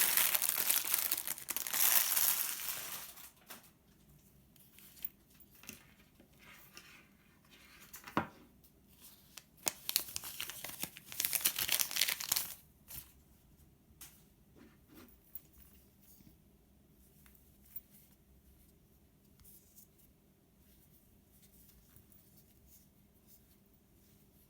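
Packaging being crinkled and torn open by hand, in two rustling bursts, the second about nine seconds in, with a few small clicks and handling sounds between; quiet room tone after about thirteen seconds.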